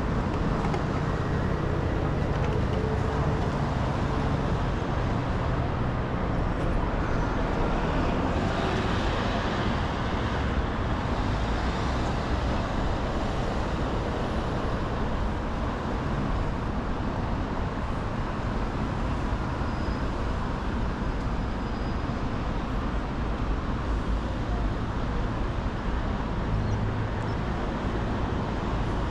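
Continuous road traffic on a busy multi-lane city road: engines and tyres running together, with a louder vehicle passing about eight to eleven seconds in.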